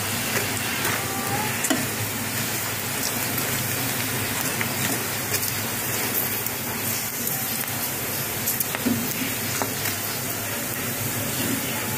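Ridged snack crackers sizzling in shallow oil in a nonstick pan, a steady hiss with scattered small pops, while a spatula turns them as they fry to golden brown.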